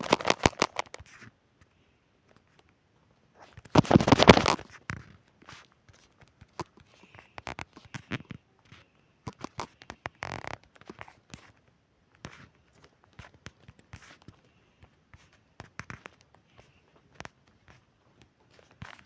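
Rustling and scratching handling noises, with a louder crackling burst about four seconds in, then scattered small clicks and scrapes.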